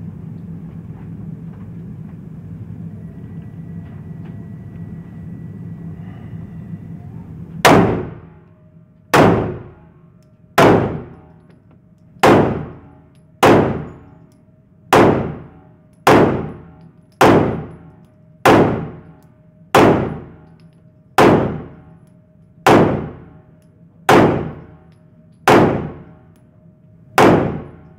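A steady low hum, then from about eight seconds in a string of about fifteen gunshots at an even pace, roughly one every second and a half, each with a short ring after it: one magazine fired at a target.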